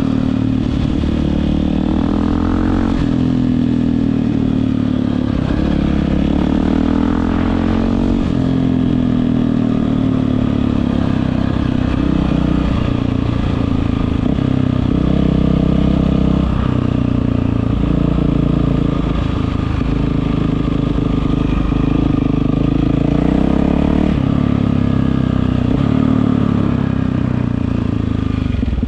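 Yamaha WR450F single-cylinder four-stroke dirt bike running through an Akrapovič aftermarket exhaust. The engine note rises and falls repeatedly as the revs change.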